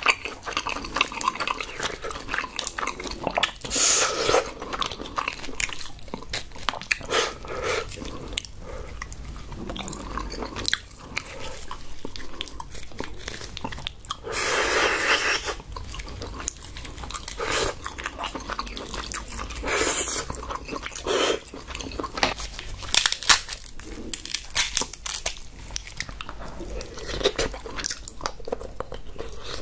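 Close-miked eating sounds: king crab meat pulled from the shell, bitten and chewed, with many small wet clicks and smacks. There are a few longer, louder stretches, the longest about a second near the middle.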